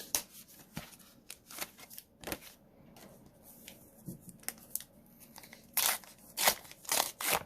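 Plastic Pokémon card pack wrapper being torn open and crinkled by hand, with the cards handled. It comes as a string of short, sharp rasps and crackles, the loudest cluster near the end.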